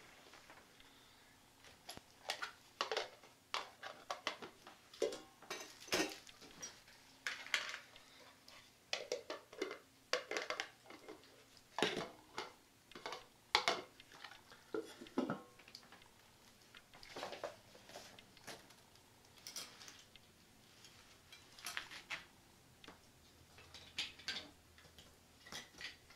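Pieces of a GSI Outdoors Halulite MicroDualist cookware set being handled: the aluminium pot, lid, mugs and bowls clinking and knocking together in irregular, scattered clatters with short pauses between.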